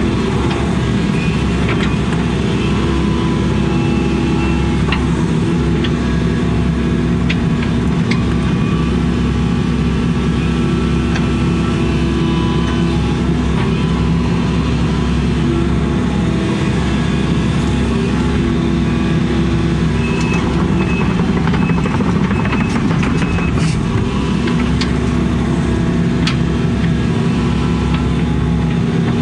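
Excavator's diesel engine running steadily, heard from inside the cab, as the boom and bucket work soil. A few sharp clicks and knocks break in here and there.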